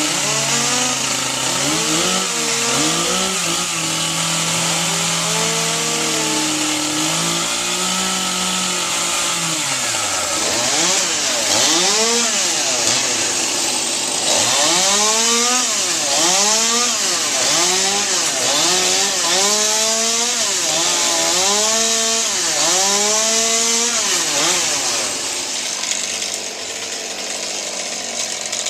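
Gas chainsaw cutting tree limbs. It runs at a fairly steady speed at first, then is revved up and down over and over, about once every second or so, and settles into more even running near the end.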